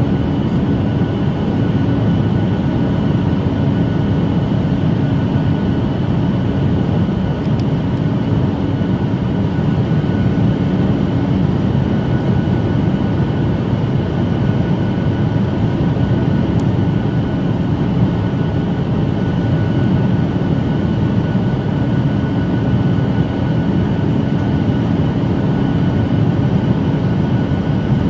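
Steady cabin noise inside a Boeing 737 MAX 9 on approach: the hum of its CFM LEAP-1B turbofans and rushing airflow, with a faint steady whine above it.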